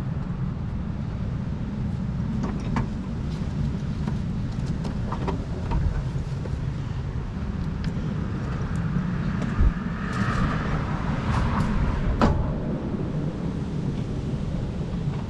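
Steady low rumble throughout, with a few short, light clicks and knocks of screws and hand tools as the headlight assembly's screws are fitted.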